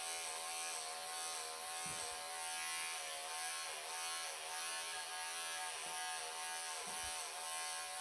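Bravura electric pet clippers running steadily as they clip through a Persian cat's long, thick coat, the buzz dipping briefly in pitch several times.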